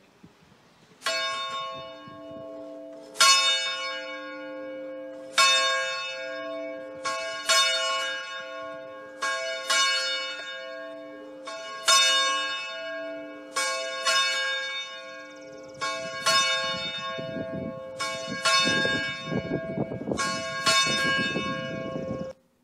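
A single church bell tolling, struck about every two seconds with lighter strikes in between, each stroke ringing on. A low rumble builds under the last several strikes, and the ringing cuts off suddenly near the end.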